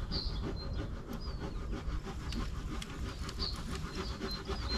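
Wind rumbling on the microphone, with faint high bird chirps and light clicks and rubbing from a carp rod and reel as a hooked carp is played.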